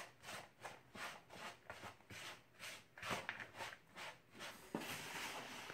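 A spoon stirring a dry muffin mix of flour with shredded carrots and apple, raisins, walnuts and coconut in a plastic mixing bowl, coating the moist ingredients in flour. Soft scraping strokes come about two a second, turning to a steadier rustle near the end.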